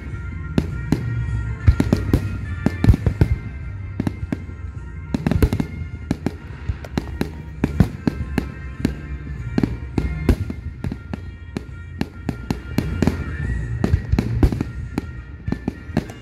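Aerial fireworks shells bursting in a rapid, overlapping string of bangs and crackles, several a second, with a few louder booms among them and a low rumble underneath.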